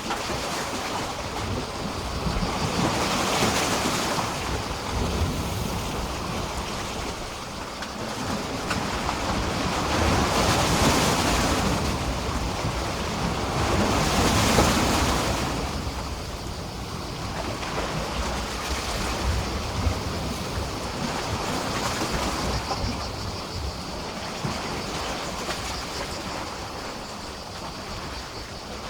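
Small sea waves washing and splashing against a pier, in slow surges: three stronger ones in the first half, then calmer lapping.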